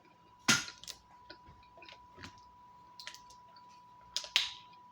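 Close-miked eating: a person chewing food, with scattered wet mouth clicks and smacks, the loudest about half a second in and two more near the end.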